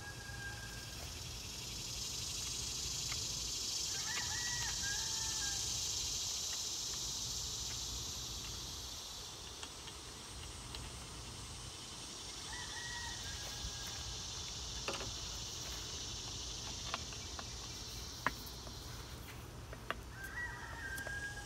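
Outdoor summer ambience: a steady high insect drone that swells and then eases off, with a bird calling a few times, a short call about a second long each time and several seconds apart. Several light metal clicks come in the second half as the brass fitting is handled and an adjustable wrench is set on it.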